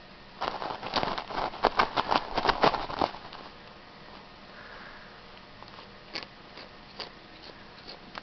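A cat making crunching noises: a quick run of sharp crunches lasting about two and a half seconds, then a few scattered single crunches.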